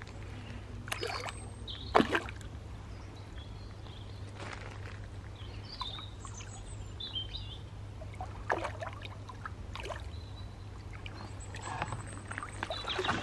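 Lake water splashing as a large carp is released from a landing net and swims off, with sharp splashes about one and two seconds in, more a little past halfway and a burst near the end. A few small bird chirps are heard in the middle.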